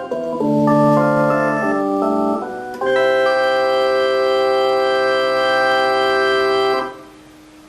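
Casio LK-230 portable keyboard playing a sustained, organ-like voice: a few short chords, then one long held chord that cuts off near the end, leaving a faint hum.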